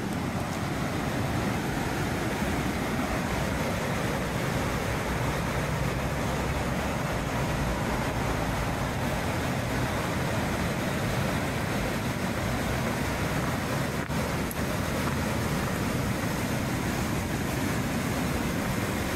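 Steady rush of a large, fast whitewater river running close by.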